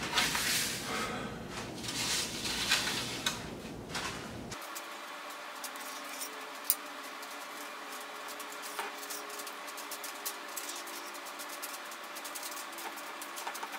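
Metal sheet pans scraping and shifting on a countertop for a few seconds. Then come many small metallic clicks and scrapes as metal teaspoon measures scoop macaron batter and scrape it off onto a parchment-lined pan.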